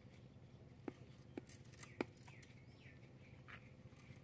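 Near silence: a faint background hum with a few short, sharp clicks, about one, one and a half and two seconds in, the last the loudest.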